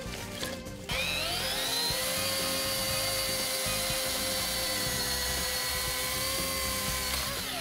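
Chainsaw speeding up just before a second in, then cutting through a block of ice at a steady high whine, easing off near the end. Background music plays underneath.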